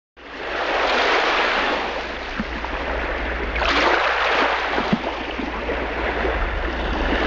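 Sea waves washing onto a shore, swelling and falling back about three times over a low steady rumble, fading in out of silence at the start.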